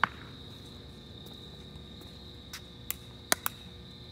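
Sharp plastic clacks of a pickleball being knocked with a paddle: one at the start, then a few lighter taps between about two and a half and three and a half seconds in. Under them, a steady high-pitched drone of insects.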